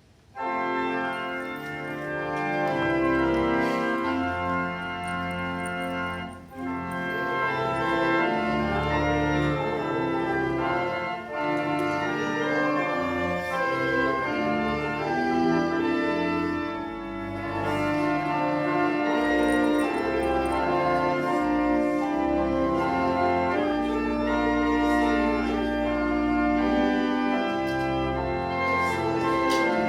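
Church organ starting abruptly about half a second in and playing sustained chords over deep bass notes.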